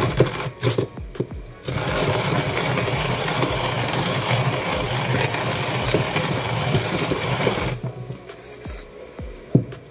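Timemore Chestnut C2 Slim hand grinder's conical burrs crushing coffee beans as the handle is cranked, set finer for an espresso grind. A few uneven turns at first, then steady grinding from about two seconds in until nearly eight seconds, fainter after that.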